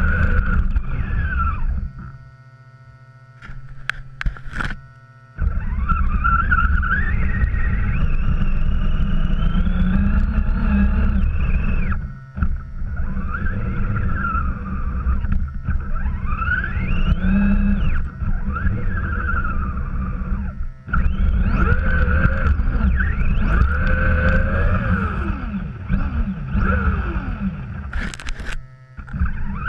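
Axial RC truck heard from its onboard camera as it drives through snow. The motor whine rises and falls with the throttle over a heavy low rumble from the chassis and snow hitting the camera. It drops away for a few seconds about two seconds in and briefly near the end.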